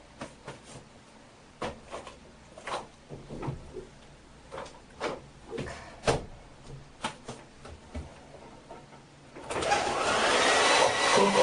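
Light knocks and clicks of handling, then about nine and a half seconds in a hair dryer switches on and runs with a loud steady rush, blowing out the baby powder it was loaded with.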